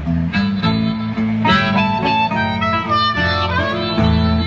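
Blues harmonica playing a fill between sung lines, over guitar accompaniment.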